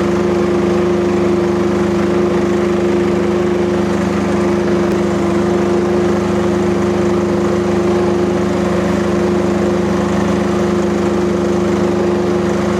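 Kubota diesel engine of a Rippa RS04 mini skid steer running steadily at working throttle, holding an even pitch.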